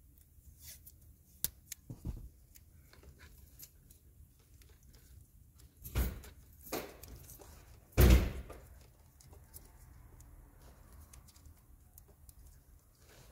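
Small clicks and handling noises, then two louder rasping tears about two seconds apart, the second the loudest: tape being pulled off the roll while spliced ignition wires are wrapped.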